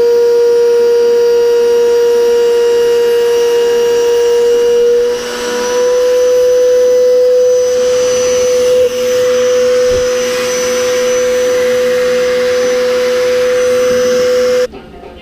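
Router in a router table running at speed, a steady high whine, as a wenge plane body is fed along the fence. The pitch steps up slightly about five seconds in, and the sound cuts off suddenly near the end.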